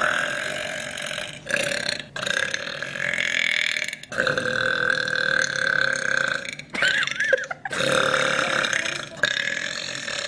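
A woman burping loudly over and over: a string of long, drawn-out burps, one after another with only brief breaks between them.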